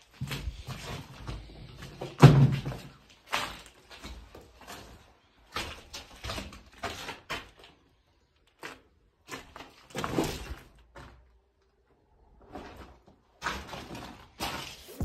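Irregular knocks, thumps and crunches of someone moving over broken plaster rubble, with a heavier thump about two seconds in.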